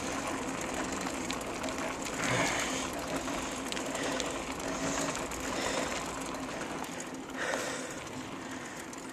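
Mountain bike being ridden on asphalt: a steady mechanical rattle and clicking from its chain and freewheel, over tyre noise on the pavement.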